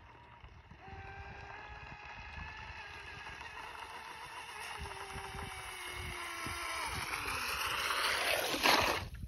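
Radio-controlled electric boat's brushless motor whining as the boat runs in toward the shore, growing louder as it approaches, its pitch sliding down over the last few seconds. Near the end comes a loud rushing splash as the boat reaches the shallows, cut off sharply.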